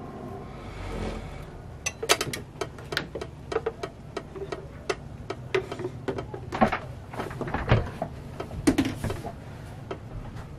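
Irregular hard plastic clicks, taps and knocks as a clear plastic food container is handled and set against a George Foreman grill to prop its hot lid open. A few louder knocks come in the second half.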